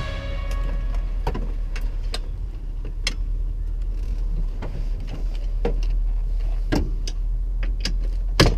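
Scattered short clicks and light knocks of hand work on a car's dashboard and steering-column parts, over a steady low hum.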